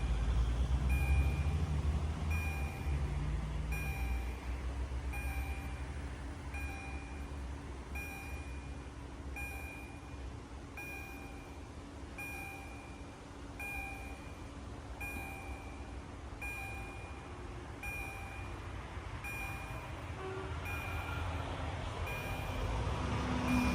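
EHL-S10 electronic railway crossing bell ringing a short repeated ding, about one and a half strokes a second, warning that the crossing is closed. A low rumble fades out over the first few seconds, and a road vehicle comes up near the end.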